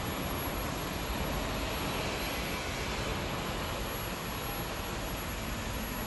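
A 100 kg induction aluminium melting furnace and its power supply running during a test run, giving a steady, even machine noise with no breaks.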